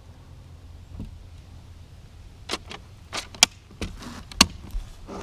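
Hands handling wooden display cases: a quick run of sharp clicks and knocks with some brushing, starting about halfway through, the two loudest about a second apart.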